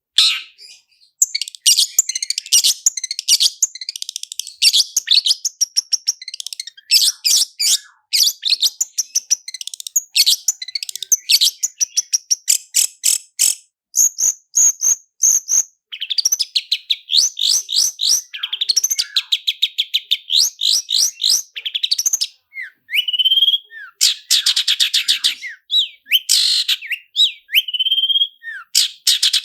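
Long-tailed shrike singing a fast, high-pitched rolling song of rapid trills and chattering notes, mixed with mimicked phrases, with short breaks between phrases.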